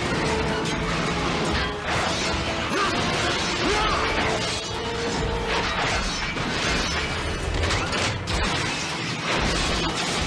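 Animated robot battle sound effects: repeated metallic crashes, clanks and impacts over a dramatic background music score.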